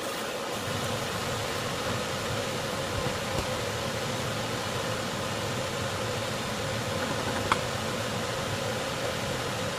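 Steady rushing noise with a faint hum, and a single light tap about seven and a half seconds in.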